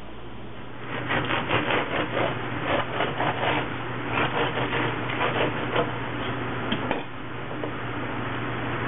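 Bread knife sawing lengthwise through a crusty baguette on a wooden cutting board, in quick strokes at about four a second for some six seconds. A couple of sharp clicks follow near the end, over a steady low hum.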